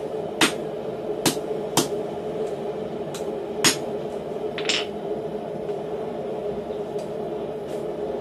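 Hand hammer striking a red-hot doubled steel knot on a steel anvil block: about five sharp, irregularly spaced blows in the first four seconds, then a longer metallic clatter and a few faint taps, over a steady low hum.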